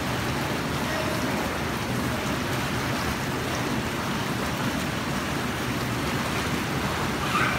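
Steady rushing and bubbling of water churned by a swimming pool's whirlpool jets, with children splashing in the water.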